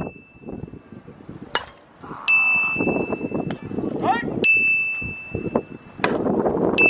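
A bright 'ding' sound effect sounds three times, each a single ringing tone that fades away, over chatter of voices. Two sharp knocks fall between the dings.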